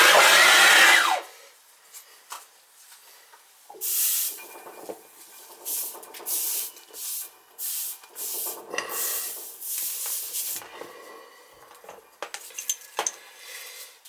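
Soldering torch flame hissing loudly on copper pipe, cut off suddenly about a second in. After it come intermittent rustling, rubbing and light clattering of handled tools.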